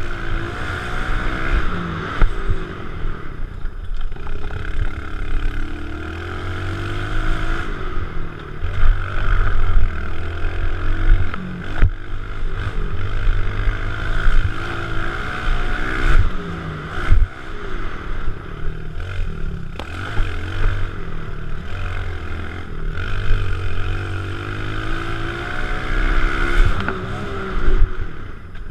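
Kawasaki KLX110 pit bike's small single-cylinder four-stroke engine revving up and down over and over as it is ridden around a dirt track, with wind noise over the microphone and now and then a sharp knock.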